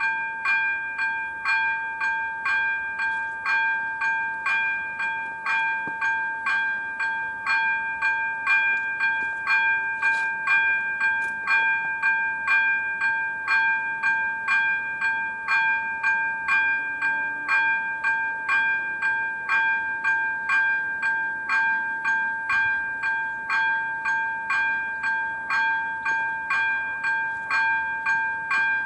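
Electronic level-crossing bell (ZV-02) of AŽD 97 warning lights ringing a steady, even ding about one and a half times a second over a held ringing tone, the crossing's warning signal that a train is approaching.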